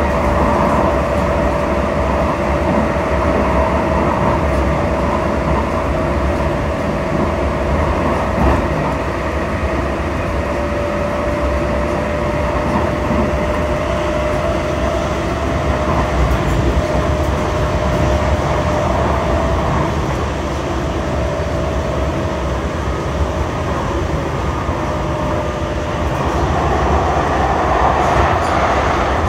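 Siemens light rail car running along the track, heard from inside the passenger cabin: a steady low rumble with a constant motor whine that sinks slightly in pitch and fades out a few seconds before the end. Near the end a rush of noise swells as another light rail train passes close alongside.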